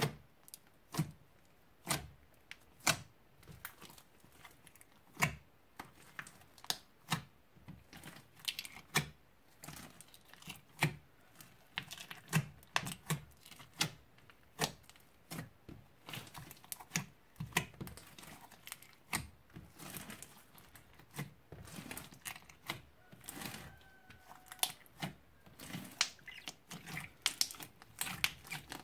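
Slime being kneaded and folded by hand, giving sharp clicks and pops about once a second, with softer crackling in between that grows busier toward the end.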